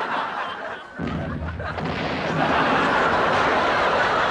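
Studio audience laughing, with a low thud about a second in.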